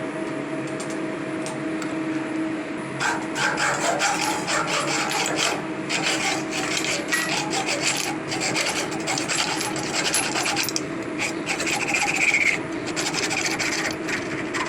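CNC milling machine trimming steel with a high-speed-steel end mill: a dense rasping scrape of the cutter in the steel, starting about three seconds in, over the steady hum of the spindle. This is the slow way of cutting off steel without a carbide disc cutter.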